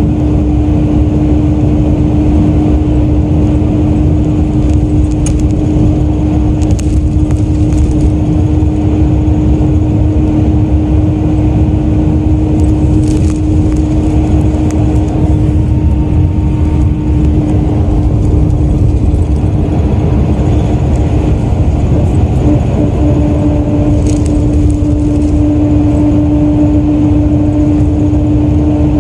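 Hino Selega coach (QRG-RU1ASCA) running at a steady speed: a loud, even engine and road drone with one constant whine over it, which shifts slightly in pitch a little over twenty seconds in.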